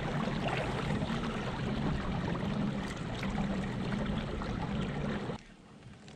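Wind rushing over the microphone, mixed with water lapping against a plastic kayak hull, then cutting off abruptly about five seconds in.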